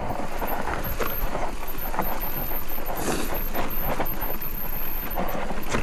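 Specialized Turbo Levo e-mountain bike clattering and rattling over rough dirt on a fast descent, with many short knocks from the frame, chain and wheels over steady tyre and wind noise.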